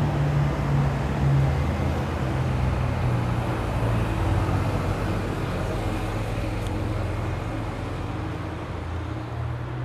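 Street traffic: a car engine's steady low rumble over general town street noise, easing slightly near the end.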